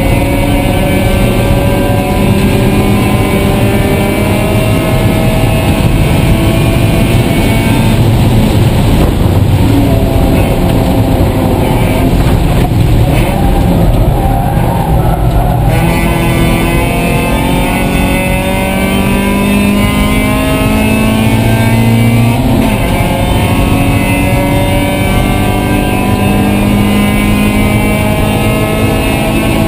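Mazda Miata race car's four-cylinder engine heard from inside the cabin, running hard at high revs, its pitch climbing through the gears. About a third of the way in it eases off and goes down through the gears for a chicane, then pulls up through the gears again.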